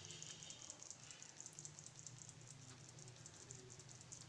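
Near silence: faint, quick, even ticking with a low steady hum underneath.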